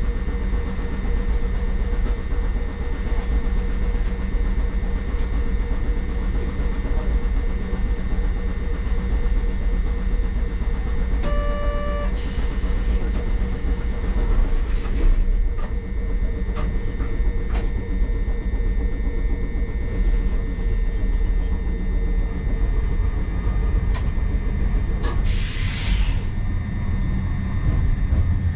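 Hankai Tramway streetcar heard from inside, first standing at a stop and then pulling away, with a steady low rumble and hum of its equipment. A short beep sounds about eleven seconds in, followed by a few seconds of hiss. A second, shorter hiss comes near the end.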